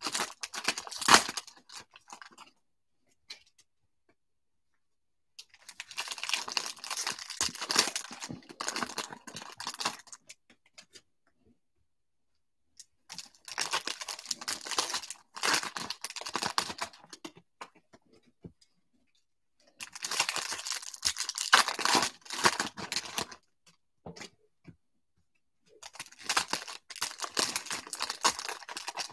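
2020 Topps Stadium Club baseball card pack wrappers being torn open and crinkled by hand. The crinkling comes in several bursts of a few seconds each, with short quiet gaps between.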